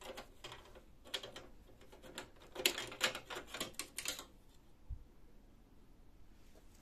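Hard plastic clicking and rattling as a black plastic cover is unclipped and pulled off the back of an HP LaserJet 2400-series laser printer, with a dense run of clicks about three seconds in. A single low thump about five seconds in.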